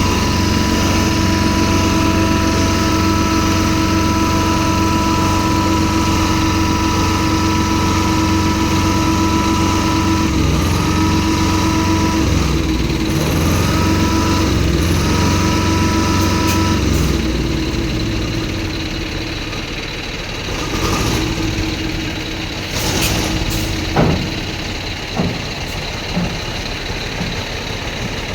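A heavy vehicle's engine idling with a steady whine over it. About 17 seconds in, the whine and the deep hum drop away, leaving a lower rumble and a few sharp knocks near the end.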